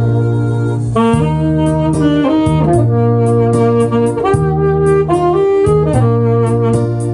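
Alto saxophone playing a slow melody over a backing track of sustained keyboard bass notes and a steady drum beat; the saxophone comes in about a second in.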